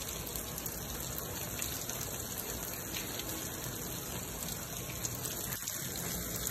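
Water streaming and dripping from the many holes of PVC aquaponics towers into the trough below, a steady rain-like splashing. The owner thinks the holes are too big.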